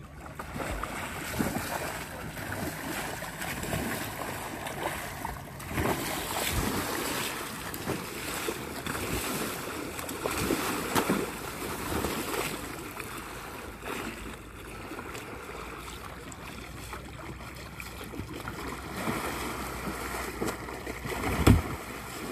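Water splashing and churning as a C-1 freestyle canoe and its single-blade paddle are driven through flatwater tricks, in a string of uneven splashes with one loud splash near the end.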